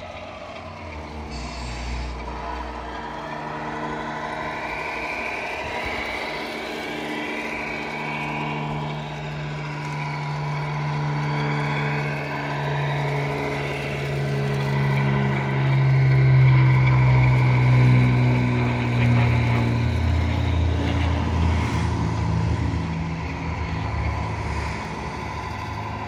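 Radio-controlled model semi-truck driving and turning, its onboard sound unit playing a diesel truck engine that rises and falls in pitch with the throttle. The engine sound is loudest about two-thirds of the way through.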